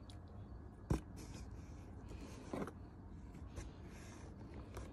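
Handling of a cardboard shipping box and succulent cuttings: soft rustling and scraping, with one sharp knock about a second in and a short rustle a little past the middle.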